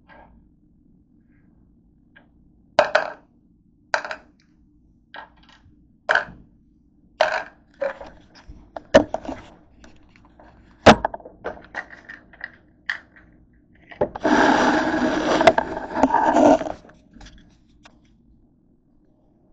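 Phosphorus binder tablets and a plastic pill bottle clicking and knocking on a wooden desk, about a dozen separate knocks, one loudest near eleven seconds in. About fourteen seconds in comes a couple of seconds of continuous scraping and rustling.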